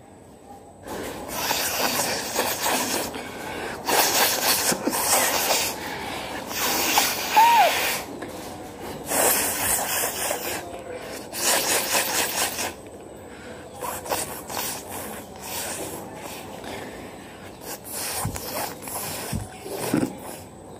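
A woman blowing her nose forcefully again and again: about six loud, rushing blasts of a second or two each, followed by fainter, shorter ones near the end. There is a brief squeak partway through.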